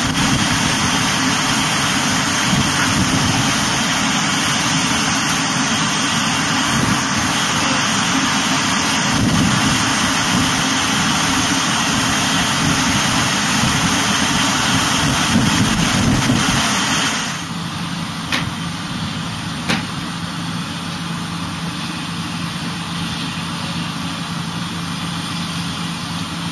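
A fire engine's engine running steadily, a dense noisy din. About two-thirds of the way through it drops abruptly to a quieter steady engine hum with a low drone, broken by two brief knocks.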